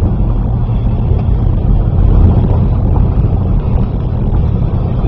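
Ford car driving along a dirt road, heard from inside the cabin: a steady low rumble of engine and tyres on the gravel.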